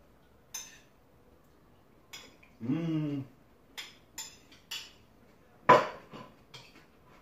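Metal spoon clinking against a bowl while a man eats from it: a scattering of short, sharp clinks, the loudest about six seconds in. About two and a half seconds in there is a brief hum from the eater.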